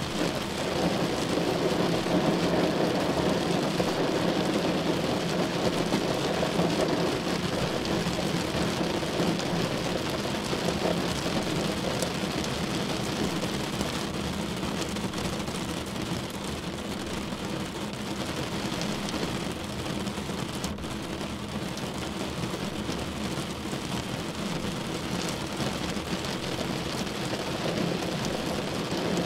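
Heavy rain falling on a car, a dense steady patter that eases slightly about halfway through.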